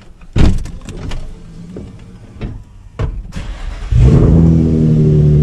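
Nissan 350Z's V6 engine starting about four seconds in and settling straight into a loud, steady idle. Before it, knocks and clicks of someone getting into the driver's seat, with one sharp thump early on.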